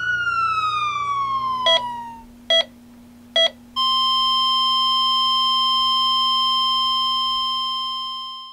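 A siren's wail falling away over the first two seconds, then three short electronic beeps under a second apart, then a long unbroken tone from about four seconds in that fades out at the end: a medical patient monitor beeping and then going to a flatline.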